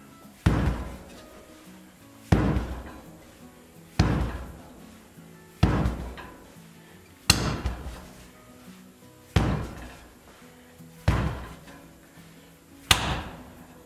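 A wooden buggy wheel with a hard rubber tire repeatedly striking a concrete floor: eight heavy hits, roughly one every two seconds, each ringing out briefly.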